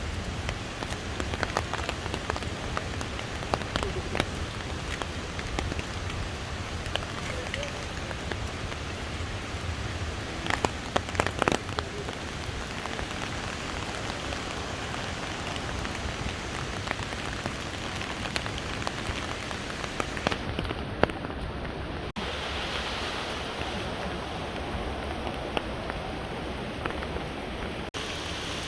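Steady rush of falling water from Fukuroda Falls, with a few sharp clicks scattered through. The noise drops out briefly twice in the last third.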